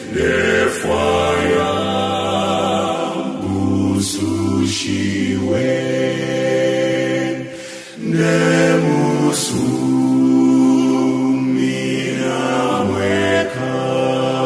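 Choir singing a slow hymn in Bemba, in long held phrases with brief breaks between them.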